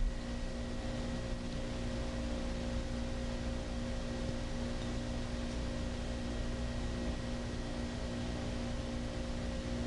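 Steady room tone: a constant electrical hum with faint hiss, with no distinct handling sounds.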